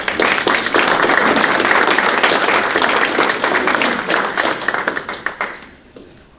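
Audience applauding, a dense patter of many hands clapping that fades out about five and a half seconds in.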